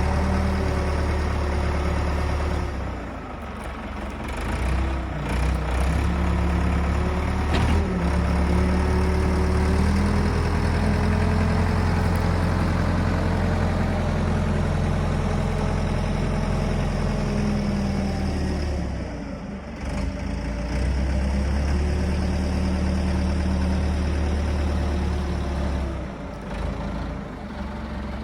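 A heavy engine running, its speed and load changing several times, with brief dips in level.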